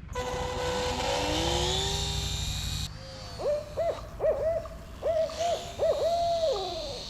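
A rising whine over a steady hum for about three seconds, cutting off suddenly. Then an owl hooting, a quick series of short hoots that bend up and down in pitch.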